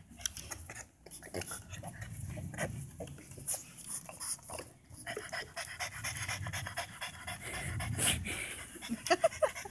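French bulldog panting in quick, uneven breaths while straining at a stick.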